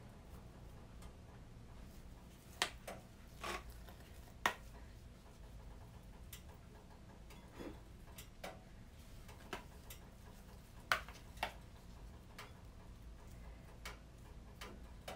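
Rubber spatula knocking and scraping against a serving bowl as thick hummus is scraped into it: scattered light taps and knocks, a few seconds apart, over a faint steady low hum.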